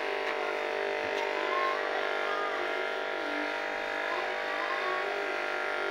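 Steady electrical buzzing hum at an even level throughout.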